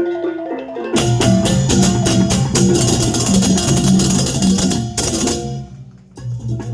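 Balinese Balaganjur gamelan playing: a melodic run of pitched bronze notes, then about a second in the full ensemble comes in loud with clashing cymbals, drums and gongs. It drops away just before the end and picks up again.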